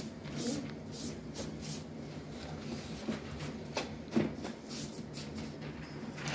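A paper napkin rubbed in short, irregular strokes over the dusty plastic casing of an inkjet printer, wiping the dust off.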